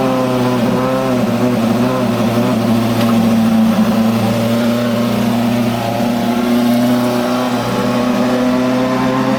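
Formula 1 car engine running at fairly steady revs, its pitch wavering slightly with brief small dips.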